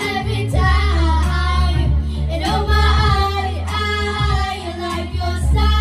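Young girls singing karaoke through microphones over an amplified backing track with a heavy bass line; the bass drops out briefly just after the start and again near the end.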